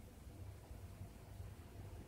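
Quiet room tone: a faint steady hiss with a low hum underneath.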